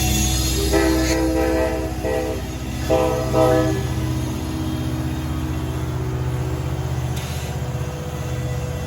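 Train air horn sounding a chord in four blasts: a longer blast, then three short ones, all in the first four seconds. A steady low rumble of the train runs underneath.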